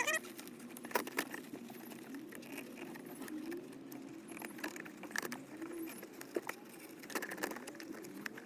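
Scattered plastic clicks and knocks as a car's centre console trim is tugged loose by hand, its clips letting go.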